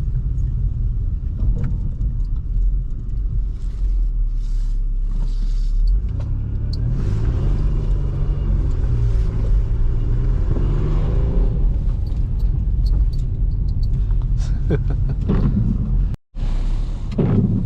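A 2005 Toyota Highlander's 3.3 L V6 and its tyres on a snowy road: a steady low rumble. The engine pitch rises and falls between about six and twelve seconds in, and the sound cuts out for a split second near the end.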